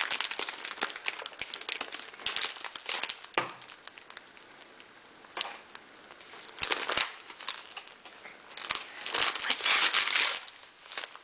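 Gift-wrapping paper crinkling and rustling as a present is pulled open by hand, in irregular bursts, with a quieter lull around the middle and the loudest crumpling near the end.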